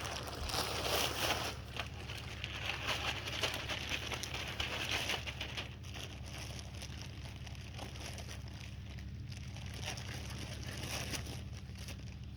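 Garden rake scraping and dragging through chunky, lumpy topsoil in uneven strokes. The scratching is loudest in the first half and comes back briefly near the end.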